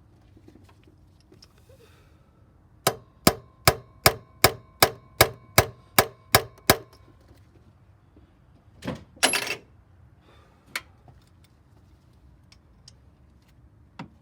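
Hammer striking a chisel on a seized cylinder-head bolt of a Chevy 4.2 inline-six: eleven sharp metallic blows at a steady pace of under three a second, each with a short ring, to shock the bolt loose without snapping it. A brief clatter follows about nine seconds in, then a couple of single knocks.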